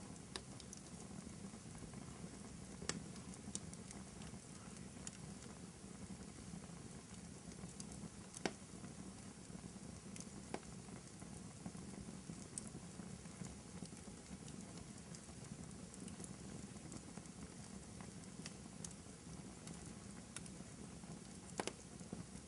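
Wood fire burning in a fireplace: a steady low rush with scattered sharp crackles and pops. The loudest pop comes about eight and a half seconds in.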